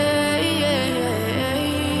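Background pop song with sung vocals holding drawn-out, wavering notes over the backing instruments.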